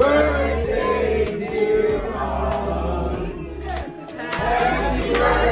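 A group of people singing a birthday song together around a cake with lit candles.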